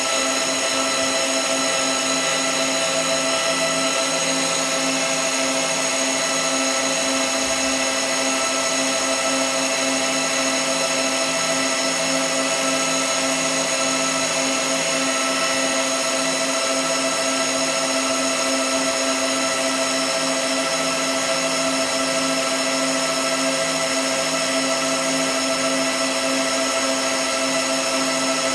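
A machine running steadily, a constant hum with several steady whining tones over a hiss, with no change in speed. The uploader calls the sound abnormal.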